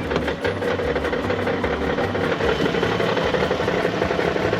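Minivan engine idling with a regular, rhythmic knock from inside the engine: a knocking engine.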